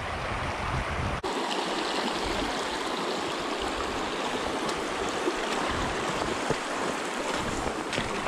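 Shallow, rocky mountain stream rushing over stones, a steady wash of water. About a second in, a low rumble under it drops away abruptly.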